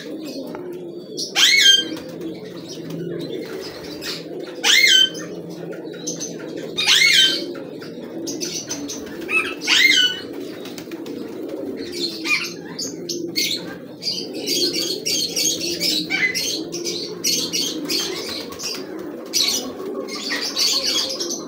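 A flock of domestic pigeons cooing continuously in a low murmur. Over it, a sharp, loud high call from another bird repeats every two to three seconds in the first half, and busy high chirping fills the second half.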